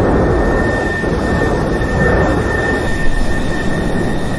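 Volcanic eruption's lava fountain giving a loud, steady, jet-like roar, with a thin high whine running through it.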